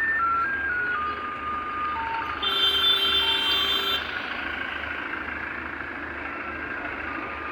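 An electronic beeping tune of single notes stepping down in pitch, then a louder buzzy tone held for about a second and a half. A steady vehicle engine rumble runs underneath.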